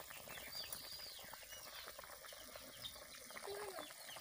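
Birds chirping, many short high calls several times a second, over the soft bubbling of curry boiling in an iron kadai.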